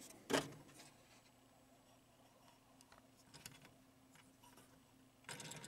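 Faint handling clicks and taps as fingers work the metal switch parts under an electromechanical pinball playfield. There is one sharper click about a third of a second in, a few light ticks around three seconds, and a brief rustle near the end, over a faint steady hum.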